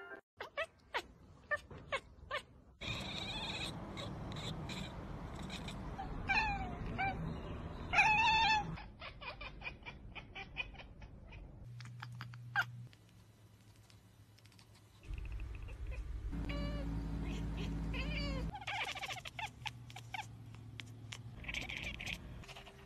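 Domestic cats meowing: several separate meows from different cats, some drawn out and wavering up and down in pitch. A few sharp clicks come in the first few seconds.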